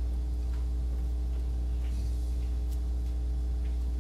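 A steady low electrical hum, with a few faint ticks over it.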